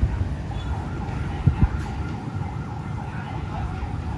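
Passenger train passing close by at speed, a steady low rumble, with two sharp thumps about a second and a half in.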